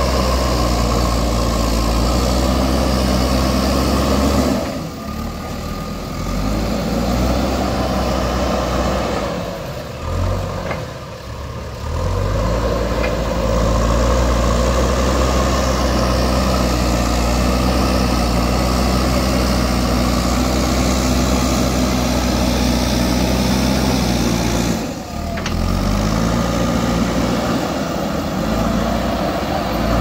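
JCB backhoe loader's diesel engine running at working revs, dropping briefly and climbing back up a few times.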